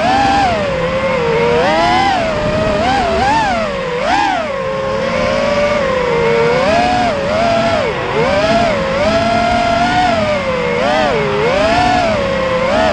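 FPV quadcopter's brushless motors and propellers whining, the pitch rising and falling constantly as the throttle is worked, with quick surges about every second.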